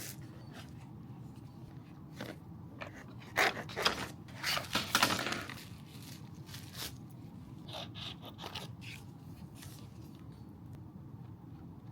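Packaging being handled during an unboxing: scraping and crinkling in scattered short bursts, busiest and loudest from about three to five and a half seconds in.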